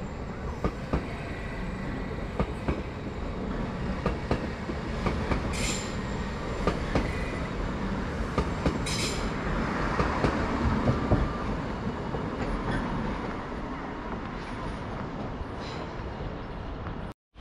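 A train rolling through a station, its wheels clicking over the rail joints over a steady rumble, with a couple of brief high hisses.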